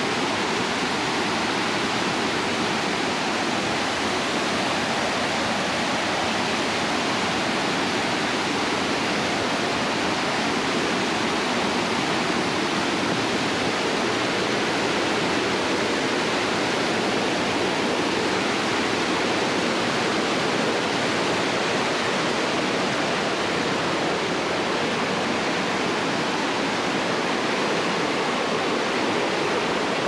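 Mountain stream rushing and splashing over rocks and small cascades, a steady, even rush of water.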